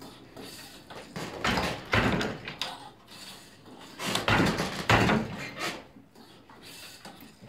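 Wooden handloom clattering as it is worked, with knocks and sliding rubs of wood in two bouts, about a second and a half in and again about four seconds in.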